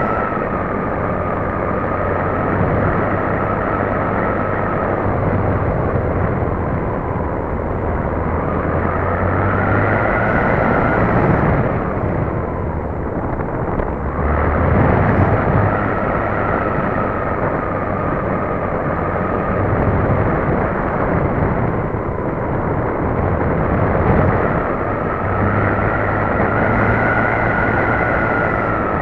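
Onboard sound of a radio-controlled model Cessna 400 Corvallis flying: the motor and propeller whine rises and falls slowly in pitch as the throttle changes. It sits over a heavy wind rush on the tail-mounted keychain camera's microphone.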